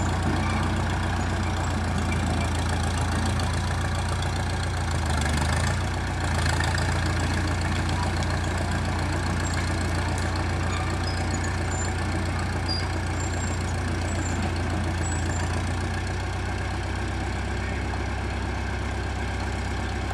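Small vintage Caterpillar crawler dozer's engine running steadily at low revs, with a short dip about five seconds in and a slight drop in level near the end.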